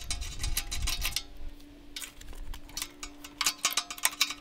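Quick runs of metallic ticks and clicks from a breaker bar and spark-plug socket being turned to unscrew the spark plug from a Honda GX390 engine. There is a run in the first second and a denser one from about three and a half seconds in, over a faint steady hum.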